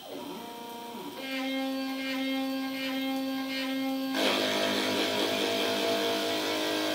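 Shapeoko 2 CNC router starting its G-code job: the stepper motors whine in steady pitched tones that change pitch in steps during the first second as the machine moves, with the Inventables 400 W quiet spindle running. About four seconds in, a louder, rougher noise joins and stays.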